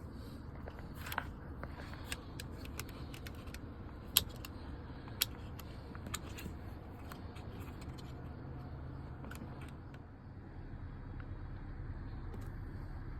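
Scattered sharp clicks and light taps of hand tools and plastic parts being worked on a steering wheel assembly, a few of them louder, over a low steady hum.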